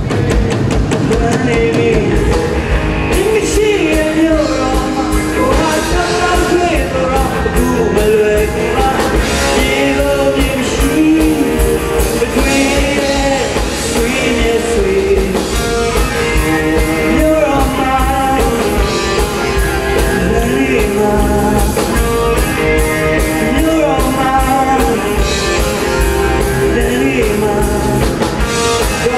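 Live rock band playing a Burmese pop-rock song: drum kit, electric guitar, bass guitar and keyboard, with a male lead singer.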